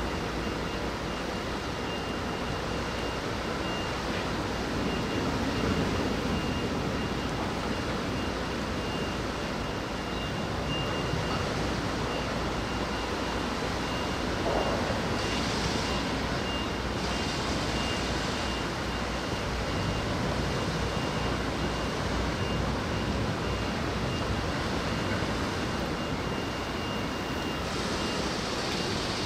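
Steady outdoor noise of wind and rain, with a faint high-pitched whine running under it; a brighter hiss swells briefly about halfway through and again near the end.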